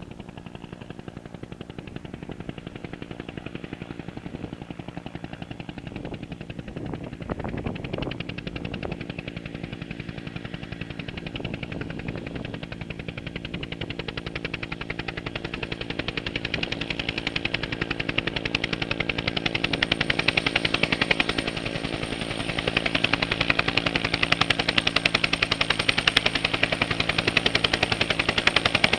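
Helicopter rotor blades chopping in a rapid, even beat over a steady engine drone, with a thin high turbine whine; it grows steadily louder as the helicopter comes in close to land on its skids.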